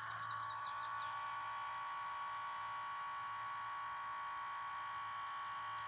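Steady electrical buzz and hum with a constant high-pitched tone, from the equipment discharging the battery pack at about 8 amps.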